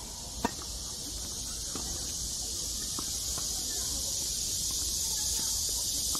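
Tennis balls struck by rackets in a doubles rally: a sharp pop from the serve about half a second in, then several fainter hits and bounces. Under it runs a steady, high-pitched cicada chorus that slowly grows louder.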